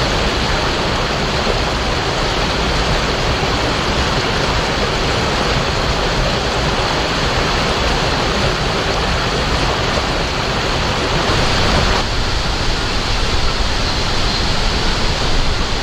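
Rushing water, a loud steady wash of sound, changing slightly in character about twelve seconds in.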